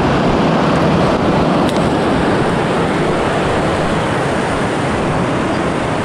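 Fast-flowing river rushing over rapids, a loud steady roar of water with no break.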